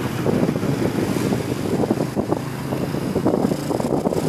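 Wind rushing over the microphone of a moving motorbike, mixed with the bike's running engine and road noise, steady throughout.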